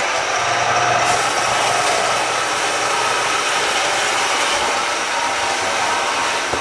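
Metal-cutting bandsaw running steadily, its blade cutting through round steel stock: a constant motor hum under the continuous noise of the blade.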